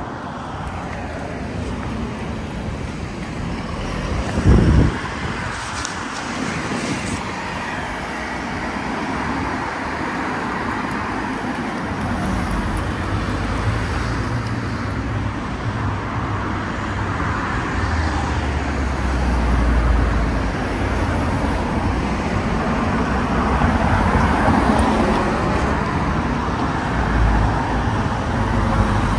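Road traffic on a town street: cars driving past with a continuous hiss of tyres and engines, a deeper rumble coming in about halfway through as vehicles pass close.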